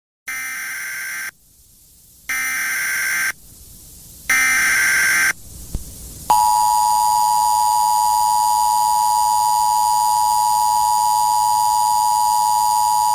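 Emergency Alert System flash flood warning tones. Three buzzy bursts of the SAME digital header, each about a second long and a second apart, are followed a second later by the loud, steady two-tone EAS attention signal, which holds on.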